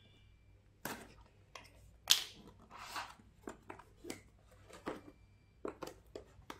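Hands handling a cardboard product box: a string of scattered scrapes, rubs and taps of fingers on the cardboard, the loudest about two seconds in.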